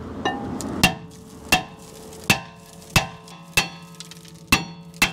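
Claw hammer striking the worn front brake rotor of a 2010 Jeep Wrangler about seven times, roughly one blow every two-thirds of a second. Each blow is a sharp metallic clang, and the cast-iron rotor rings on between blows as it is knocked loose from the hub.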